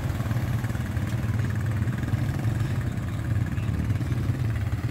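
Honda 4x4 ATV's single-cylinder four-stroke engine running steadily at low revs, with no rise or fall in speed.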